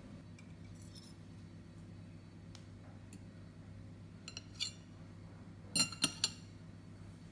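Metal fork clinking against a ceramic plate while cutting a slice of cheesecake. A few light taps come around the middle, then three sharper clinks close together near the end, over a low steady hum.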